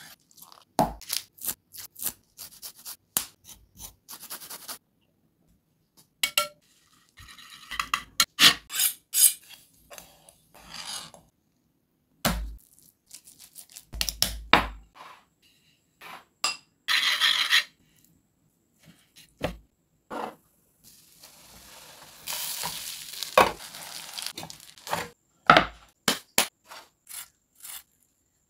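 Close-up food-preparation sounds in quick succession: a knife slicing a lemon on a wooden chopping board, clinks and taps of utensils and dishes, and gloved hands working a wet masala marinade into fish. About three-quarters of the way through comes a steady hiss of about three seconds that fits the fish frying in oil.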